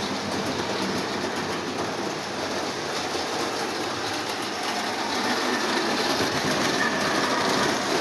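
Lionel 1065 Union Pacific toy diesel locomotive running on O27 track with its string of boxcars: a steady motor hum and the clatter of wheels over the rails, growing a little louder about five seconds in.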